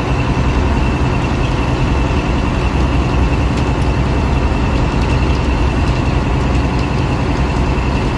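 Fishing boat's engine running steadily under way, a low drone with a thin steady whine above it, mixed with the rush of water and wind.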